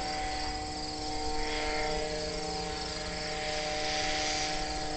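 Distant steady drone of a powered hang glider's engine, an even hum, with insects chirping.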